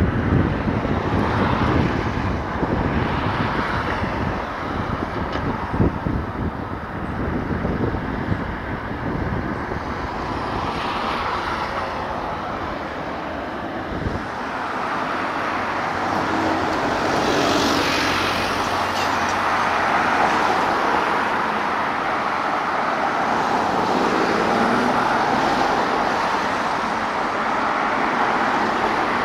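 Wind buffeting the microphone, then from about fifteen seconds in a steady jet roar builds and holds: a jet aircraft coming in to land.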